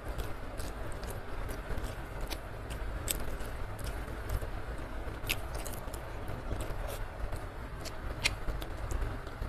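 Close-miked eating sounds: a person chewing a mouthful of rice and side dishes, with wet mouth clicks and a few sharper crunchy clicks, over a steady low rushing noise.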